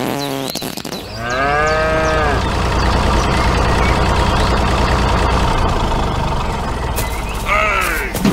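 A cow moo, one long call about a second in, followed by a tractor engine running steadily, and a second, shorter moo near the end.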